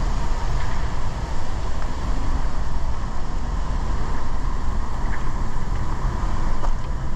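Wind buffeting the microphone: a steady, loud low rumble with an uneven level, and a faint steady tone running under it.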